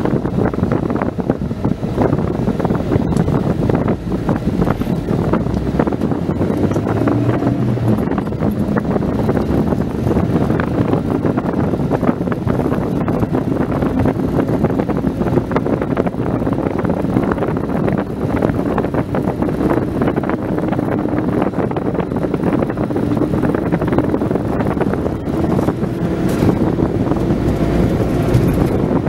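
Car driving on a road, heard from inside the cabin: steady road and wind noise with the engine running underneath, its note rising slightly near the end.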